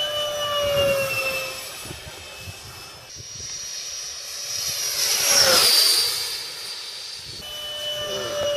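Electric ducted fan of a radio-control jet whining as the model flies. The pitch sags a little about a second in. A louder fly-by follows around five to six seconds in, its whine sliding down in pitch as it passes.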